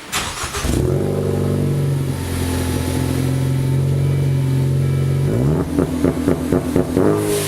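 Ford Focus ST's 2.0-litre turbocharged four-cylinder revved through its exhaust: it climbs about a second in and holds a steady high idle for roughly four seconds, then gives a quick run of throttle blips before climbing and holding again near the end.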